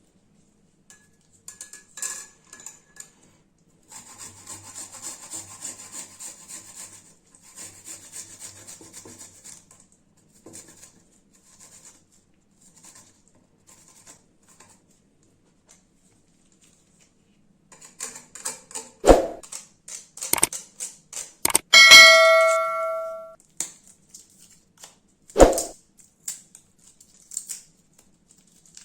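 Hand-prep sounds of utensils and containers. A rhythmic scraping or stirring goes on for several seconds, then come a few sharp knocks and one clear ringing ding, like a hard utensil striking a glass or metal vessel, that fades over a second or two.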